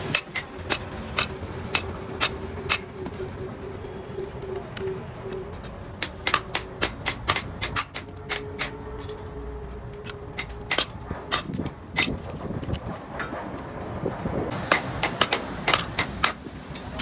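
Hand hammer striking rivets on a Mercedes-Benz brake shoe while new brake lining is riveted on: a series of sharp metallic taps at an uneven pace, coming in quick runs near the end.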